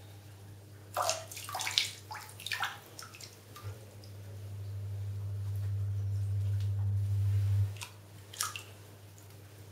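Bathwater sloshing and splashing in a cluster of short splashes over the first few seconds, with two more near the end. Under it runs a low hum that swells for a few seconds and then cuts off suddenly.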